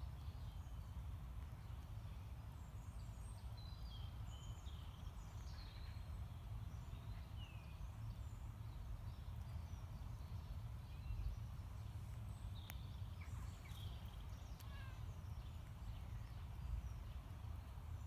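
Wild birds chirping and singing in short, scattered notes over a steady low rumble.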